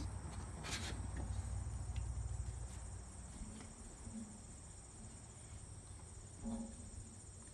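Insects, crickets or cicadas, chirring steadily and high-pitched in the background. A low rumble, the loudest sound, runs under them and stops about three seconds in.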